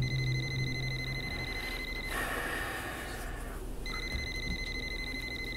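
Phone ringing with an electronic trilling ring: two rings of about two seconds each, with a gap of about two seconds between them.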